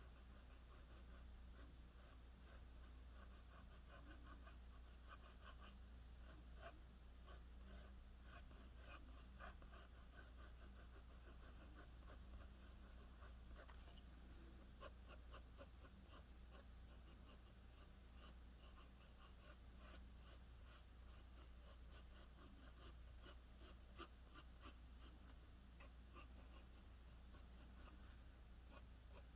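Pencil scratching on drawing paper in a fast, continuous run of short strokes, shading strands of hair; faint.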